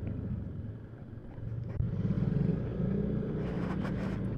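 Single-cylinder engine of a Yamaha NMAX scooter running while riding along, with road rumble; the engine note drops back about a second in and picks up again with a steady note from about two seconds in.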